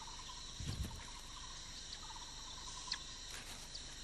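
Forest insect chorus: a steady high-pitched buzzing with short pulsed trills repeating every second or so, and a soft low thump about three-quarters of a second in.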